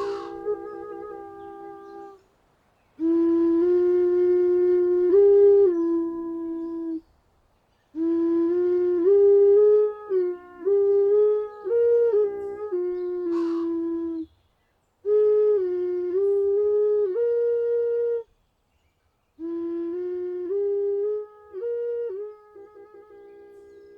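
Music: a solo flute playing a slow melody in phrases of a few seconds each, with short silences between them and a few quick flickering notes.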